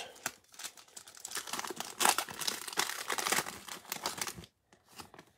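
Plastic wrapper of a basketball trading-card pack crinkling as it is handled and torn open by hand. The crinkling is loudest in the middle and stops abruptly after about four and a half seconds, leaving a few faint clicks.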